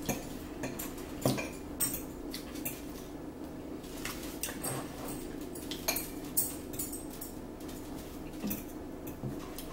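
Metal forks clinking and scraping against salad bowls in irregular, scattered clicks as two people eat spinach salad.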